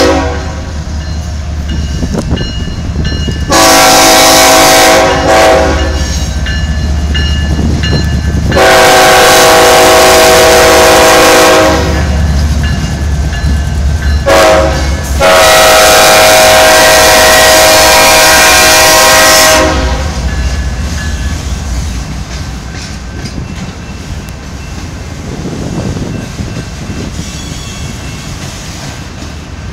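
Canadian Pacific freight train's diesel locomotive sounding its air horn: three long blasts with two short toots between them, the last long blast about four seconds. Under the horn, and alone after it, is the low rumble of the locomotive and the freight cars rolling past on the rails.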